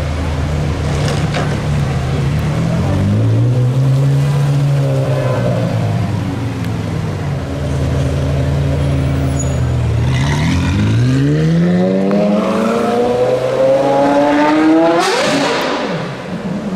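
Gemballa Mirage GT's V10 engine running low, blipped once, then revved in a long rising pull to a high pitch that drops suddenly with a sharp crack.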